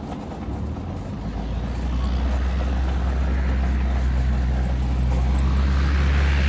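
Cessna 172N's four-cylinder Lycoming piston engine and propeller running at low taxi power, a steady low hum that grows louder as the plane taxis closer.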